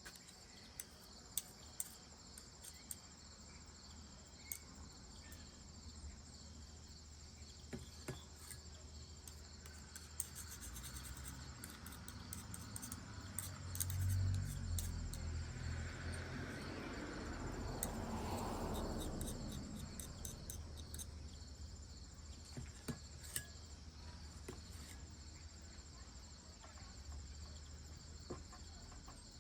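Insects, crickets by their sound, chirping steadily in a high pulsing trill, with occasional light clicks. About halfway through, a low rumble swells and fades over several seconds.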